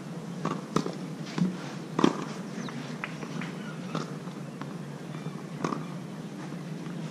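Tennis ball struck by rackets and bouncing on a clay court during a rally: sharp single knocks every second or two, the loudest about two seconds in, over a steady low hum.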